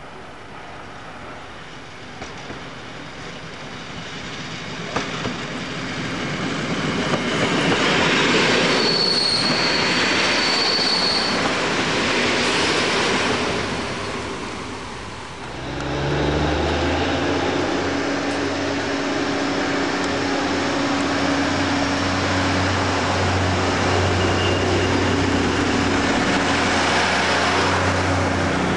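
A train passes close by, growing louder to a peak, with a high wheel squeal for a couple of seconds at its loudest. After a cut about halfway through, a steady engine hum from a train standing at a station platform.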